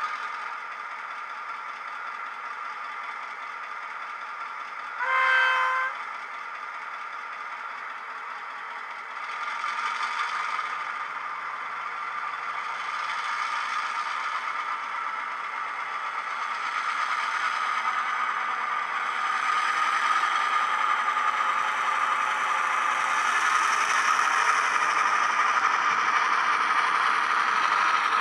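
ESU LokSound 5 sound decoder in a model Australian P class diesel locomotive, playing through a small 22x13x6 mm bass-enhanced speaker: the diesel engine idles, the horn sounds once for about a second about five seconds in, then the engine notches up and grows steadily louder as the loco pulls away. Near the end the model wagons clatter along the track.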